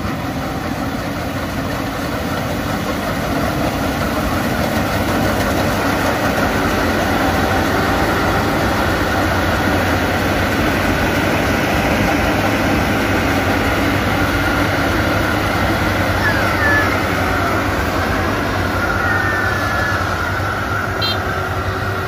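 A Maxxi Bimo rice combine harvester running steadily as it cuts and threshes rice, a dense machine drone that grows a little louder over the first few seconds as it comes close, then holds level.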